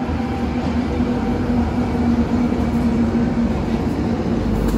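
Steady low rumble of a running engine with a held hum, swelling slightly near the end.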